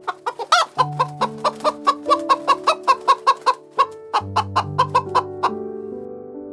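Chicken clucking in a fast run of short, sharp clucks, about five a second, stopping about five and a half seconds in, over background music with held notes.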